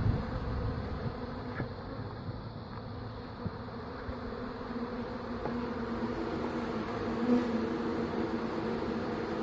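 Honeybee swarm buzzing steadily as it moves into a hive box, a low even hum with a brief swell about seven seconds in.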